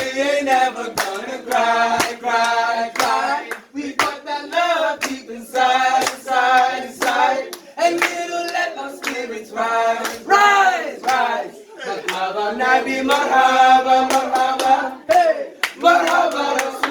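A cappella devotional chorus, several voices singing a nasheed melody, with hand claps among the singing.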